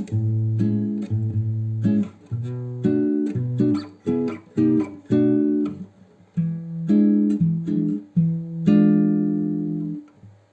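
Background music: a guitar playing a run of chords, dying away near the end.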